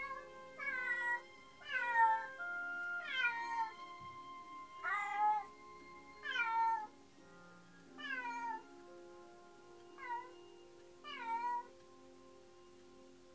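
A domestic cat meowing over and over, about ten falling meows roughly a second apart that stop about a second and a half before the end, over soft background music. The cat is crying from loneliness while left home alone, heard as recorded footage played back through a small speaker.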